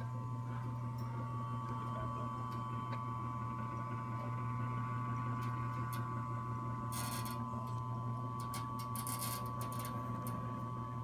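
Electric winch motor of a davit boat lift running steadily, a low hum with a higher whine over it, with a few brief clicks and rattles about seven and nine seconds in.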